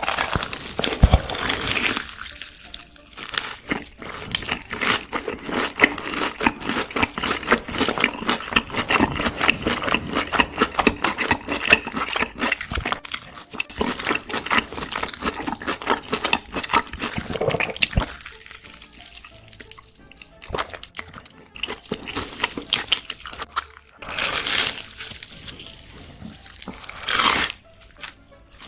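Close-miked wet eating sounds: rapid sticky smacks, clicks and squelches of someone chewing gooey, cheesy food, with a few crunchy bites.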